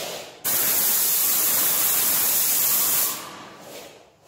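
Yokiji 120 paint sprayer's gun spraying paint onto a wall: an even hiss that starts abruptly about half a second in, holds steady, and dies away after about two and a half seconds.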